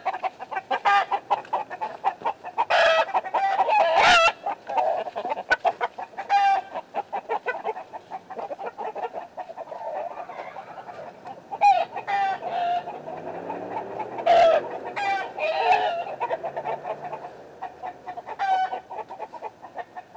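Chickens clucking over and over, with occasional scrapes and thuds from a garden fork digging up and dropping clumps of deep chicken litter.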